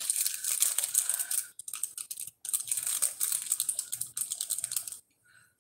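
Small clear plastic packaging bag crinkling in the hands, a dense run of crackles that stops about five seconds in.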